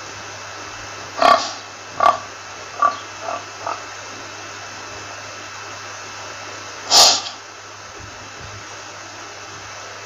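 Pigs grunting in short calls: five between one and four seconds in, then a louder one about seven seconds in. A steady hiss and low hum lie under them.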